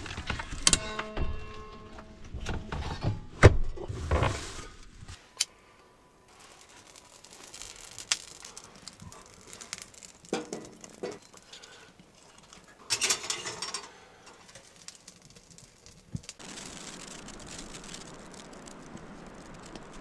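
Scattered knocks, clinks and rattles of gear being handled, with a short squeaking tone about a second in. A steady hiss comes in near the end.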